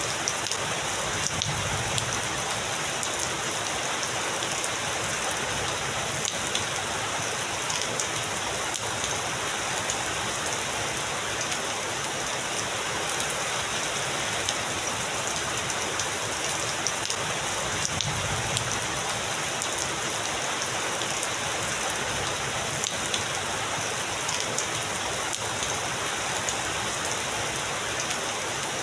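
Heavy rain falling steadily, with many small drops spattering on a surface. Faint low thunder rumbles swell up twice, about a second in and about halfway through.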